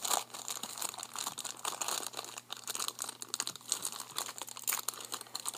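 Crinkly plastic packaging of a Num Noms toy pack being crumpled and torn open by hand, a dense run of irregular crackles.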